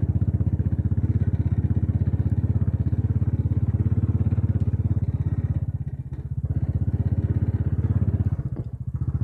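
Royal Enfield Bullet 500's single-cylinder engine thumping steadily under way, heard from on the bike. The engine note dips briefly twice, about six seconds in and again near the end.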